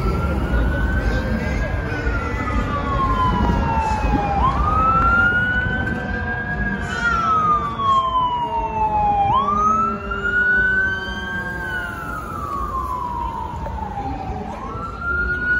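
Fire engine siren sounding a slow wail, its pitch climbing and falling in cycles of about five seconds, over the low rumble of traffic.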